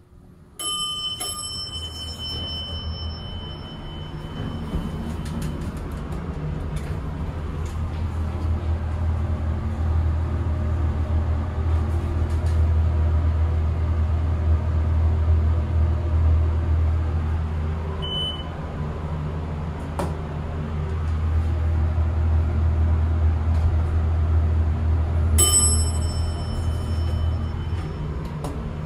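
Elevator chime ringing about a second in, then a loud, steady low hum through the ride, which the owner puts down to an obnoxious cab fan. A short beep comes about two-thirds of the way through, and a second chime near the end as the car arrives.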